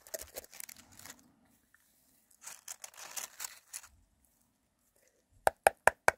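Soft rustling and crackling of dry moss and substrate as isopods are tipped out of a small plastic cup. Near the end comes a quick run of four or five sharp clicks from the plastic cup being tapped and handled.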